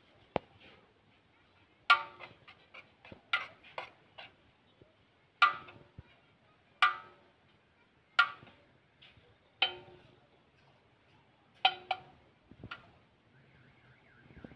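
Metal serving spoon knocking against the rim of a large aluminium biryani deg while rice is scooped out, giving sharp ringing clinks about every one and a half seconds, with lighter ticks and scrapes between them.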